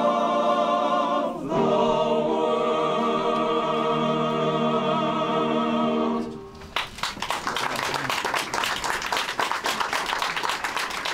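Male-voice choir singing the final words of a song, "of the world": a short chord, then a long held final chord with vibrato that ends about six seconds in. Audience applause follows at once and carries on to the end.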